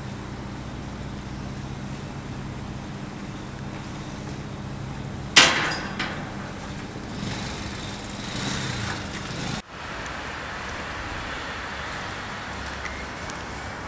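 Steady background hum, broken a little over five seconds in by a single loud bang that rings out briefly, with a lighter knock just after it.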